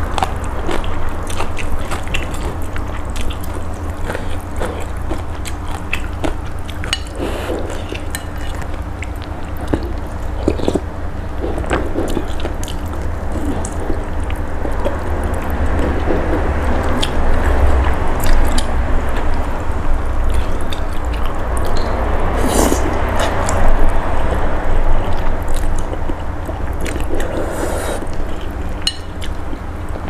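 Close-miked eating of spicy pork noodle soup: thin rice noodles slurped with broth, chewing, and chopsticks and a metal spoon clicking against the ceramic bowl, over a low steady hum.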